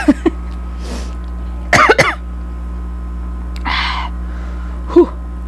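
A woman's short coughs and throat-clearing in several brief bursts, with a breathy rush about four seconds in. She says straight afterwards that she has caught a cold.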